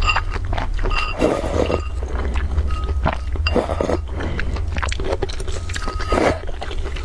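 A person slurping noodle broth from a bowl, several slurps a second or two apart, over steady background music.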